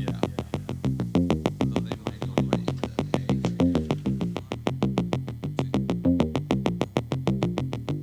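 Background music: a synthesizer track of quick, evenly spaced plucked notes stepping in pitch over a steady beat.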